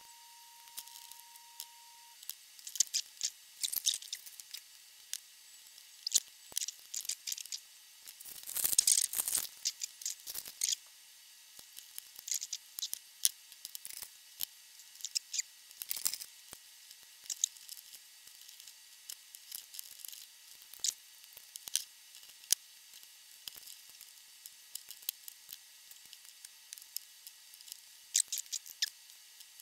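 Small clicks, taps and scrapes of a record-player cartridge and its plastic cartridge carrier being handled as the old cartridge is taken out and the new one fitted. A longer scraping rustle comes about nine seconds in, and a faint steady whine stops about two seconds in.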